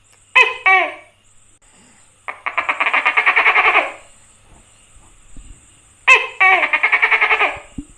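An animal calling: two short falling notes, then a rapid rattling call of about a second and a half, repeated near the end as one note followed by another rattling call.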